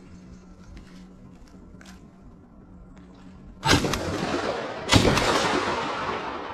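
Two shotgun shots about a second apart, each trailing off in a long fading echo.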